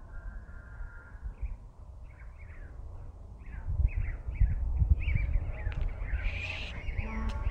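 Small birds chirping in quick, short, repeated notes, two or three a second, under a low rumble that grows louder about halfway through.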